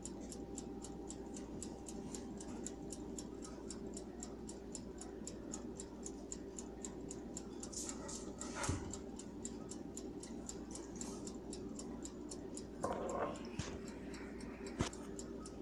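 A timer ticking, with a fast, even ticking of about three to four ticks a second over a steady low hum. A couple of brief, soft louder noises come through, one about halfway and one near the end.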